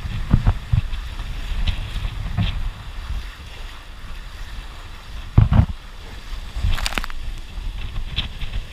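Wind buffeting the microphone and water rushing along the hull of a heeled sailing yacht as it drives through waves. Several thumps come through, the loudest about five and a half seconds in, and a sharp hissing splash of spray follows about seven seconds in.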